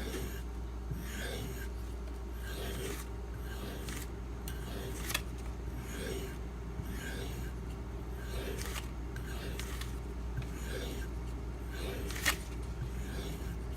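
Knife blade of a Spyderco Manix 2 in Maxamet steel being stroked across a strop loaded with 2-micron CBN emulsion, the final polishing stage of sharpening: steady rubbing strokes, about one every three-quarters of a second. Two sharper clicks, one about five seconds in and a louder one near the end.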